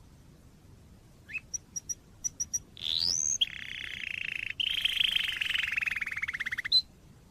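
Domestic canary singing: a few short chirps, a rising note, then a long rolling trill of about three seconds with a brief break in it, its rapid notes coming apart near the end.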